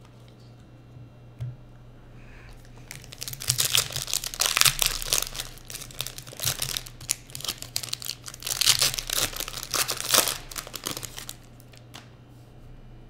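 Foil wrapper of a Panini Prizm basketball card pack crinkling and tearing as it is ripped open. It makes a dense run of crackles from about three seconds in that lasts some eight seconds, loudest near its start and end.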